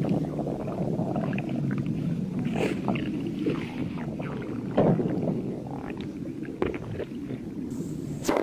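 Human stomach growling from hunger: a continuous low rumble with brief higher gurgles breaking through it every second or so.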